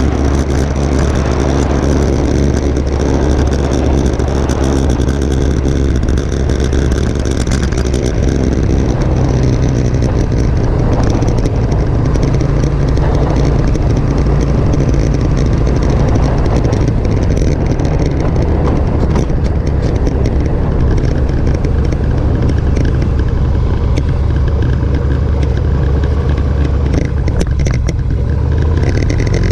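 Motorcycle engine running steadily while riding at low speed on a street, its note shifting a few times, once about eight seconds in and again about halfway through.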